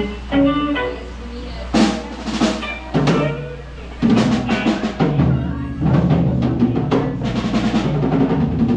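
Live band playing at a sound check, the drum kit to the fore with bass drum and snare hits among scattered instrument notes; about four seconds in the playing fills out into a fuller groove with a steady low bass.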